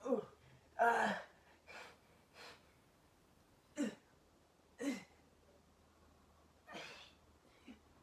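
A man's short, forceful voiced exhales during push-ups, one grunt-like breath per rep, each falling in pitch. They come about once a second at first, then further apart.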